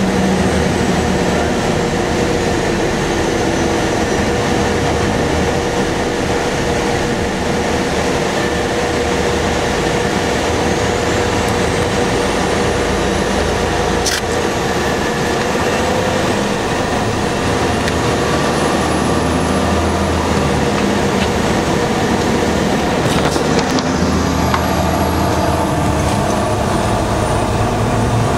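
Loud, steady engine and drivetrain noise of a military patrol vehicle heard from inside the cabin while it drives, with a faint high whine that drifts up and down in pitch.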